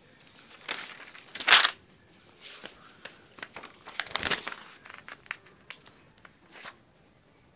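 Pages of a spiral-bound notebook being turned by hand: paper rustling in a series of swishes, the loudest about one and a half seconds in and another past the middle, with light rustles and clicks between.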